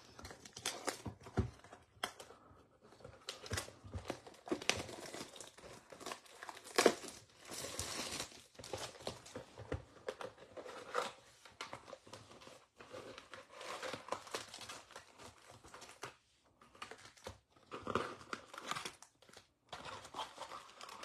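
Plastic shrink wrap crinkling and tearing as it is pulled off a cardboard box of trading-card packs, in irregular crackles with one sharper, louder crackle about seven seconds in. Near the end the box is open and the foil-wrapped packs rustle as they are handled.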